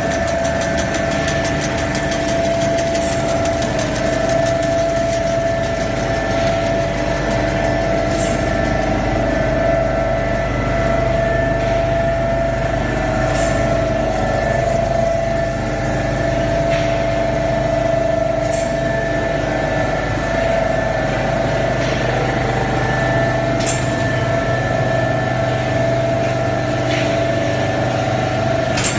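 ERW pipe mill running: a steady machine hum made of several fixed tones, with a short sharp click or clank about every five seconds.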